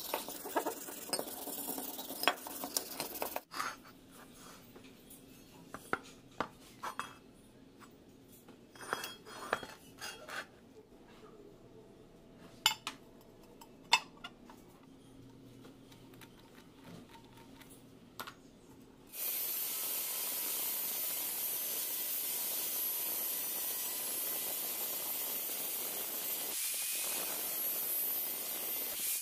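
Steel workpieces and tools knocking and clinking as they are handled, with scattered sharp metallic clinks. About nineteen seconds in, a steady, even hiss starts and holds at a constant level.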